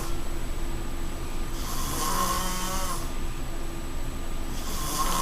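A sleeping man snoring, a long rasping snore about every three seconds: one about one and a half seconds in, another starting near the end.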